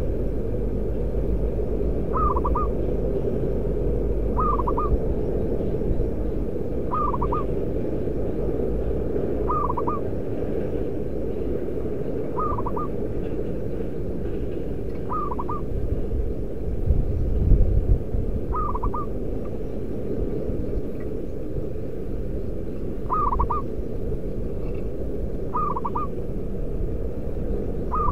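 Zebra dove cooing: short phrases of a few rapid notes, repeated about every two and a half seconds, over a steady low rumble that swells briefly just past the middle.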